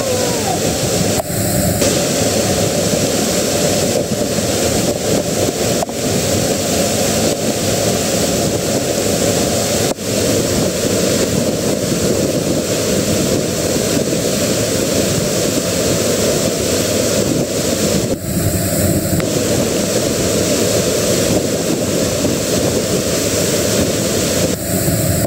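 Strong water rushing steadily, a loud, even noise with no pitch, briefly interrupted a few times.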